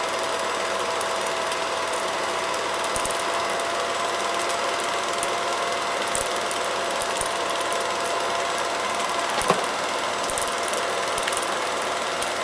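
Film projector running: a steady mechanical whir and clatter with a faint whine, and a single sharp click late on.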